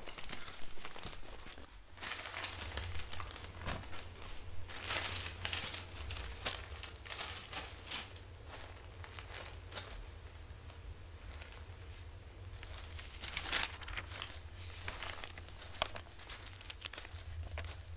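Sheets of newspaper rustling and crinkling in irregular bursts, over a steady low hum.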